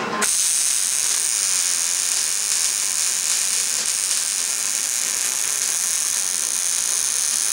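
Electric arc welding: the arc strikes suddenly and runs as a steady, even hiss.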